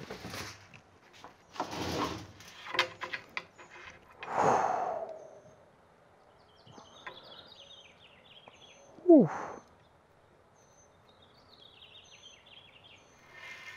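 Clicks and knocks of an aluminium extrusion frame being handled while a linear-rail carriage block slides close to the end of its rail. About nine seconds in there is a short, loud vocal exclamation that falls sharply in pitch. Birds chirp faintly in the background.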